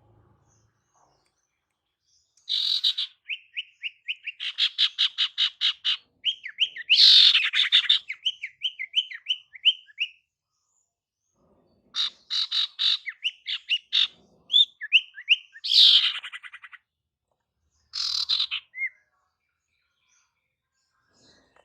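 Female sirtu (cipoh, common iora) calling in three bouts: fast chattering trills mixed with runs of short, repeated slurred whistles, with brief pauses between bouts.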